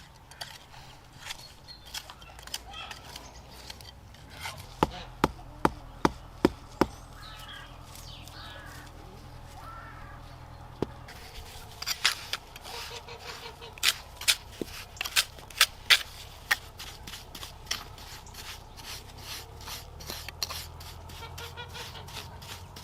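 Sharp knocks of tools striking granite while a dry stone wall is being pointed, coming in quick runs of about two a second, with quieter taps between.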